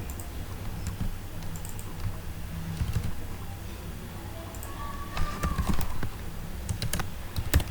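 Typing on a computer keyboard: irregular key clicks, with a steady low hum underneath.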